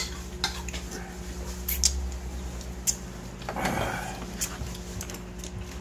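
A person eating ramen: several light clicks of chopsticks against a bowl, and a short slurp about three and a half seconds in, over a steady low hum.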